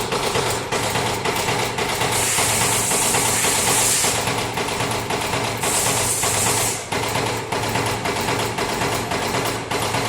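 CNC punch press punching sheet metal: a fast, continuous run of sharp hits from the punching strokes, with a high hiss coming in twice.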